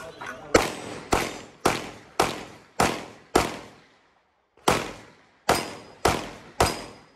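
Handgun firing rapid single shots during a practical shooting course of fire: about ten shots, roughly one every half second, with a pause of just over a second in the middle, each shot followed by a short echo off the range.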